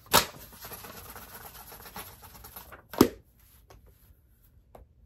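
Two sharp smacks about three seconds apart, the second louder and heavier, with soft rustling between: a paper notebook being picked up and handled.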